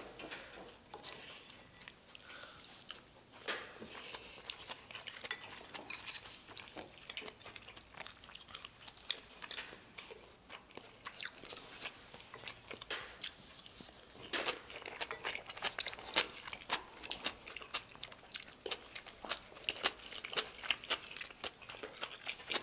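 Close-miked eating: chewing and mouth sounds, with chopsticks clicking against bowls and dishes. Many short clicks throughout, coming thicker in the second half.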